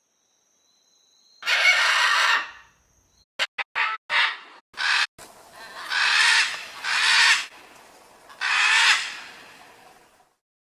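A bird calling, fowl-like: one long harsh call, a quick run of short notes, then three more long calls.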